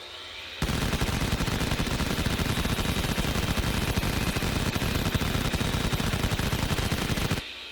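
Machine gun firing one long, continuous burst of rapid shots for nearly seven seconds. The burst begins about half a second in, after a short, quieter lead-in, and cuts off abruptly near the end, leaving a fading echo.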